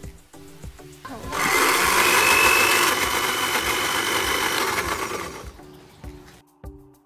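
A 250 W countertop blender running for about four seconds, chopping pandan leaves into a purée, with a thin high whine over the motor noise; it starts about a second in and stops near the end. Background music with a steady beat plays before and after it.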